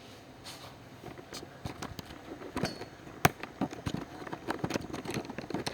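Irregular clicks and knocks of things being handled, with one sharp knock, the loudest, about three seconds in.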